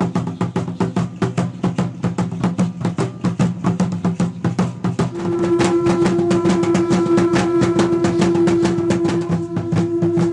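Fast, steady drumming accompanying Aztec-style ceremonial dancers. A long held note joins about halfway through.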